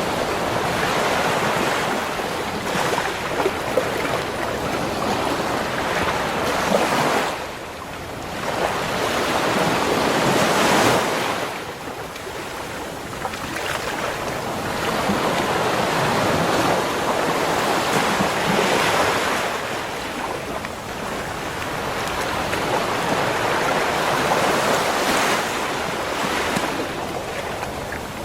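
Ocean surf on a beach: a continuous rush of breaking and washing waves that swells and ebbs every few seconds. The loudest wave builds to a peak about eleven seconds in, then falls away sharply.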